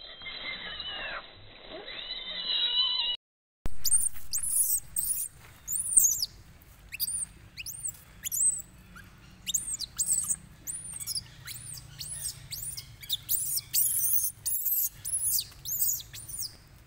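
Young long-tailed macaque squealing: a run of short, very high-pitched squeals, each rising and falling in pitch, coming irregularly about one or two a second. Before a break about three seconds in, there are fainter, lower calls falling in pitch.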